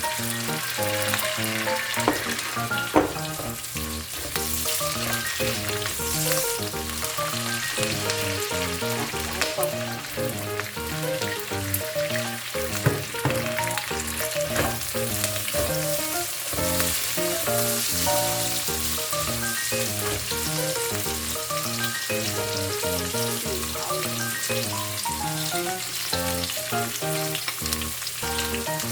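Food sizzling in a hot pan, with stirring and a few sharp knocks. Background music with shifting held notes plays underneath.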